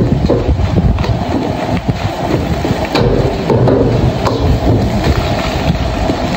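Fried rice being stir-fried in a steel wok over a high-flame gas wok burner: the burner gives a steady loud rumble, and a metal ladle scrapes and knocks against the wok now and then, clinking sharply a couple of times.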